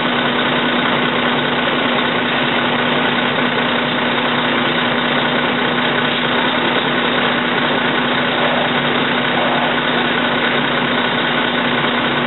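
An engine idling steadily, with a constant hum that does not change.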